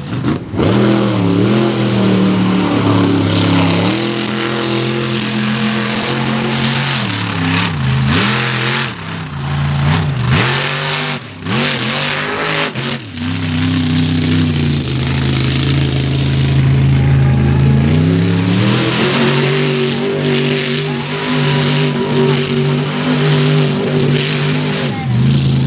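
Mega truck engine revving through a mud pit, its pitch swinging up and down with several brief drops in the first half, then held high for a few seconds around the middle and rising again to stay high near the end. A broad hiss of spinning tyres throwing mud runs over it.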